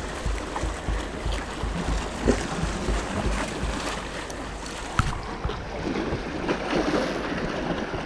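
Wind buffeting the microphone in uneven gusts over the wash of sea water lapping below.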